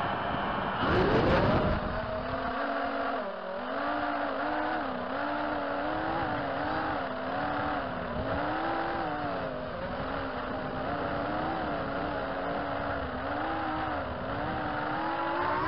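Four 2206 2200kv brushless motors with 5-inch DAL 5040 propellers on a 280-size FPV racing quadcopter, whining in flight, heard from a camera mounted on the quad. The pitch wavers up and down with the throttle, with a hard throttle punch about a second in and a rising pitch near the end.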